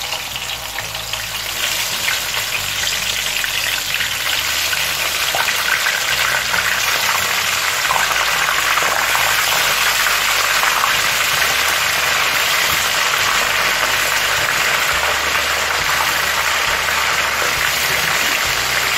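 Pieces of hake and a whole onion sizzling as they fry in hot vegetable oil in a pan. The sizzle grows louder over the first couple of seconds as more pieces go into the oil, then holds steady.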